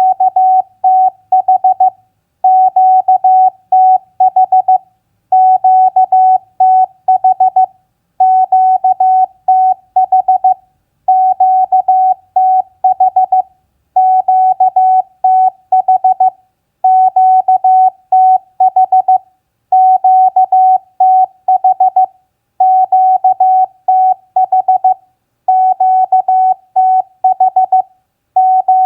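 Morse code (CW) practice tone at 15 words per minute: a single steady beep keyed on and off in dots and dashes. It is sent in runs of about two to three seconds with short pauses between them.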